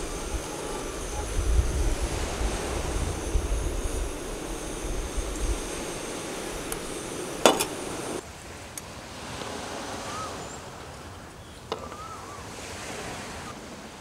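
A pizza sizzling in oil in a cast-iron skillet on a camp stove, with a steady hiss and a low wind rumble on the microphone. A single sharp clink comes about seven and a half seconds in. After that the sound drops to a quieter outdoor hush with a faint click.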